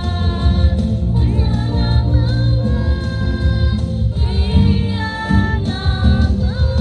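A children's choir of girls singing together in held notes over an accompaniment with a strong, steady bass.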